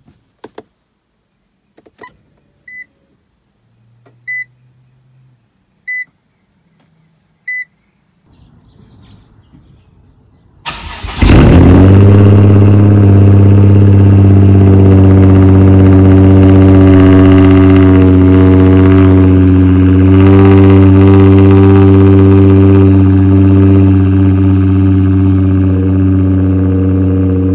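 Nissan GT-R R35's twin-turbo V6 with a straight-piped exhaust, started from cold. A few clicks and four short beeps come first. About eleven seconds in the engine cranks briefly, catches with a loud burst and settles into a loud, steady idle that eases slightly near the end.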